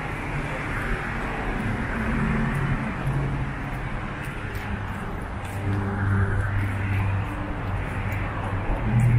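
Street traffic: cars passing with tyre noise and engine hum, a deeper engine drone coming up about midway and again near the end. Faint light clinks of keys hanging at the walker's waist.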